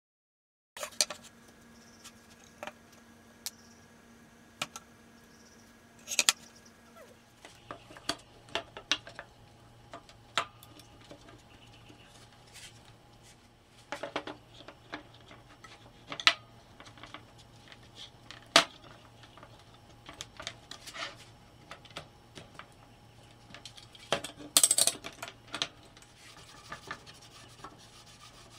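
Metal bar clamps being set and tightened on a glued-up wooden panel: irregular clicks, knocks and metallic clinks, with some rubbing, over a faint steady hum.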